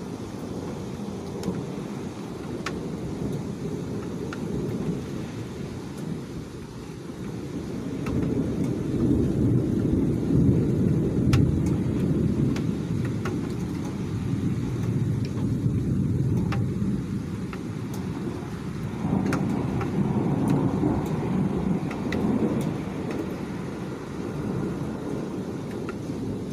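Thunder rumbling in long low rolls, swelling about a third of the way in and again about three quarters through, over falling rain with scattered sharp ticks of drops.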